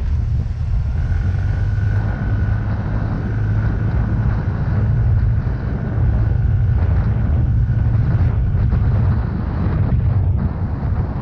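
Yamaha Mio Gravis single-cylinder scooter running steadily on the move, with wind rumble on the microphone and a faint high whine for much of the time.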